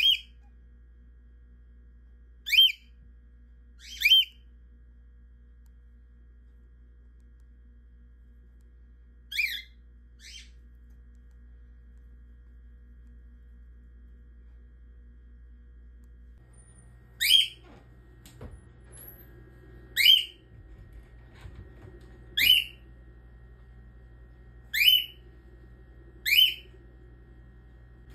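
Cockatiel calling: about ten short, sharp whistled calls, each a quick pitch sweep, repeated at irregular intervals with a pause of several seconds midway.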